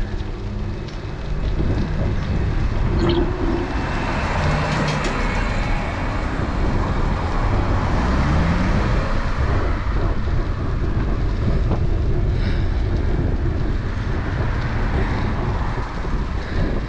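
Steady wind rushing over a bike-mounted action camera's microphone while riding, with rumbling road noise from the bicycle's tyres.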